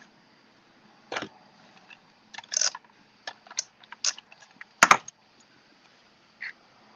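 Hands handling small paper die-cuts and a craft tool on a tabletop: about eight sharp clicks and taps at uneven intervals, the loudest just before five seconds in.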